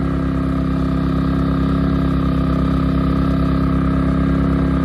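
WEN 3600-watt portable generator's engine running at a steady, unchanging speed while carrying a 16,000 BTU air conditioner, holding 60 hertz without dropping under the load.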